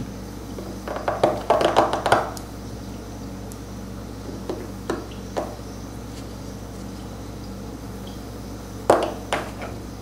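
Steel seal-carving knife scraping and chipping into the face of a stone seal in short strokes: a quick run of scrapes about a second in, a few single strokes around the middle, and two more near the end, over a steady low hum.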